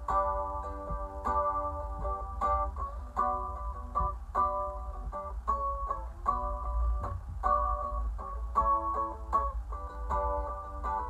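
Epiphone A-style mandolin played with a pick, chords and notes struck in a steady rhythm, over a constant low rumble from the train carriage.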